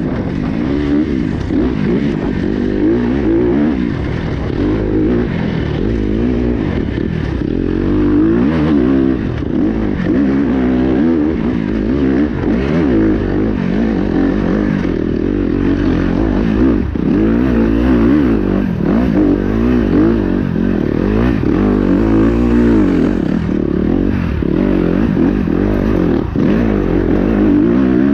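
Kawasaki KX250X's 249 cc four-stroke single-cylinder engine heard on board while riding, its revs rising and falling constantly. Occasional knocks and clatter from the bike run through it.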